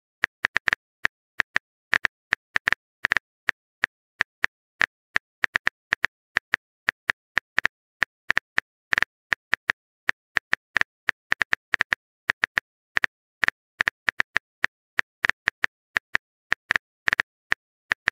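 Phone keyboard typing clicks from a texting-story app: a long, irregular run of short taps, several a second, as a text message is typed out.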